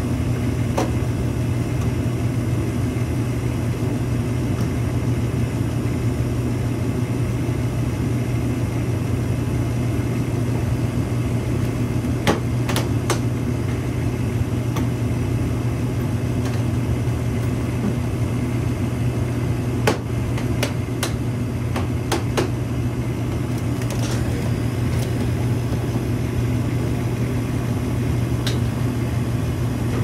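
Old York gas furnace running steadily, with the burners firing and the blower going: an even, low hum. A few sharp clicks come about halfway through and again a little later.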